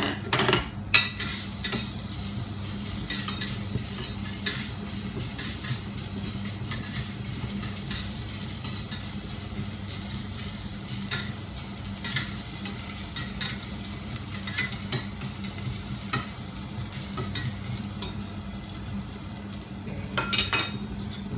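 Sliced ginger sizzling in hot oil in a pan while it is stirred, the utensil clicking and scraping against the pan again and again over the steady frying.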